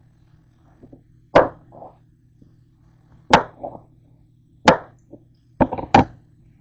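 Chef's knife chopping cantaloupe, striking the cutting board: five sharp knocks a second or two apart, the last two in quick succession, some followed by a softer knock.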